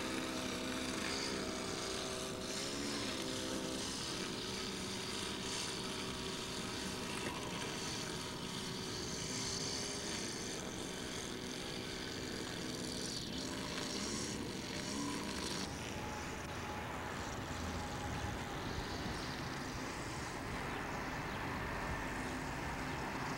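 A steady engine drone that fades out about two-thirds of the way in, leaving an even hiss.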